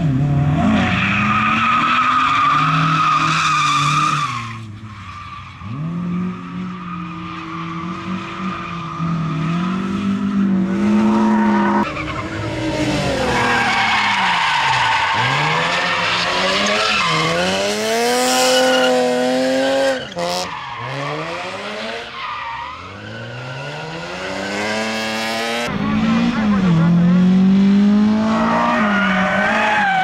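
Lada and BMW E30 rally cars driven hard one after another: each engine revs up and drops back repeatedly through gear changes and lift-offs, with tyre squeal as the cars slide through corners. The sound changes abruptly several times as one car gives way to the next.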